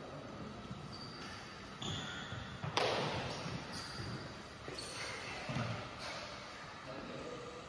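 Sports shoes squeaking and feet thumping on an indoor court floor in a large hall, with one sharp smack about three seconds in.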